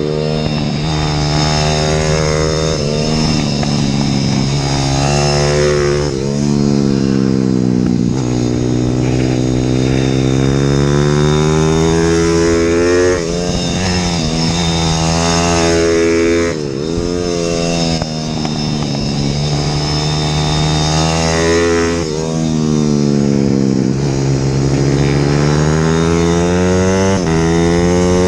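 IMR 190cc pit bike's single-cylinder four-stroke engine under hard riding, its revs climbing and dropping again and again as it shifts through the gears and slows for corners.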